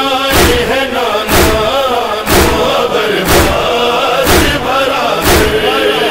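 Noha chanting: voices drawn out in a slow lament, with heavy chest-beating (matam) thuds in a steady beat of about one a second.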